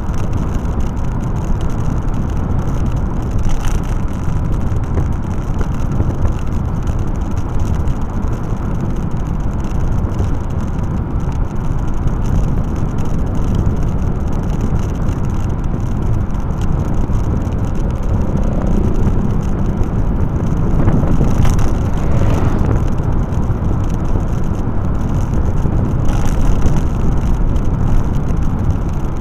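Steady wind rumble and road noise from riding along a paved road, with the wind buffeting the camera's microphone.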